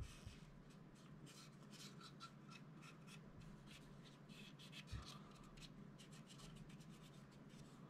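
Faint, scratchy scrubbing of a cotton swab worked back and forth inside a pistol frame, wiping excess oil and gunshot residue out of the rails. There is a soft knock about five seconds in.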